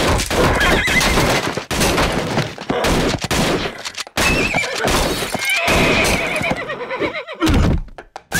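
Cartoon sound effects of a panicking horse whinnying several times amid continual loud crashing and banging, with shotgun blasts, and a heavy thud near the end.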